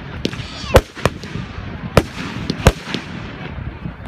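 Aerial firework shells bursting: about six sharp bangs at irregular intervals, the loudest under a second in, with crackle between them.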